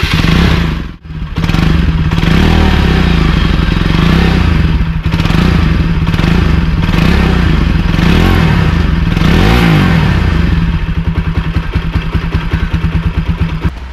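Bajaj Pulsar NS200's single-cylinder engine running through its underbelly exhaust, revved several times, then falling back to a choppier idle in the last few seconds.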